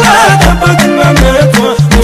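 Ethiopian wedding neshida (Islamic wedding song) playing loud, with a deep drum beat about every three-quarters of a second under a stepping bass line. A wavering sung phrase comes near the start.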